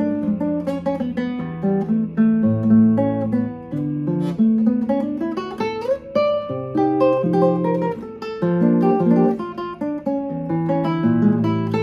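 Jose Antonio 6C nylon-string classical guitar played fingerstyle: a picked melody over sustained bass notes, with one note sliding upward about halfway through.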